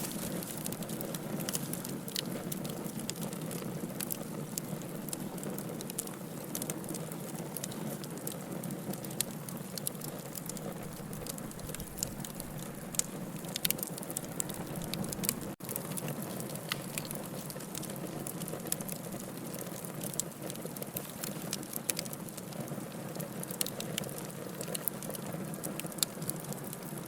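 Wood fire burning in a fireplace: a steady low rush of flames with frequent sharp crackles and pops scattered throughout, and a momentary cut-out about halfway through.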